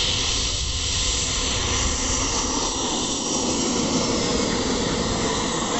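Small jet engine of a radio-controlled scale model of an Aero L-39 Albatros, whining steadily over a strong hiss as the model taxis past.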